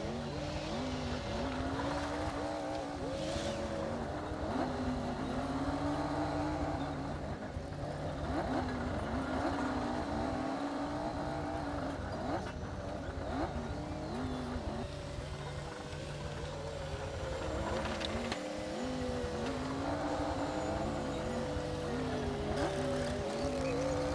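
Komatsu D60P bulldozer's diesel engine working under load, its note rising and dipping again and again every couple of seconds, over a steady low rumble with a few sharp knocks.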